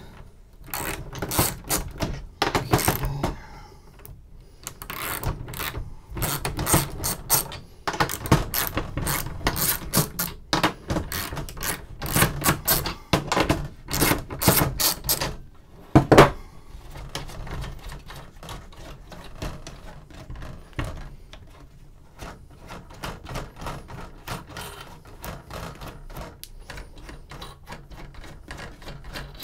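Ratchet wrench with a 9/16-inch socket clicking in quick runs as it backs the hex nuts off BNC panel connectors. A sharper knock comes about halfway through, and after it the clicks become fainter and sparser.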